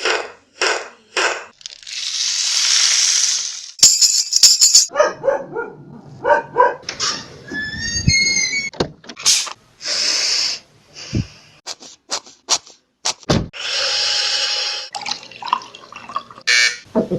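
A quick string of different short sound effects, one after another with brief gaps: sharp clicks and knocks, a few longer hisses, rattling, and a run of short rising whistles about halfway through.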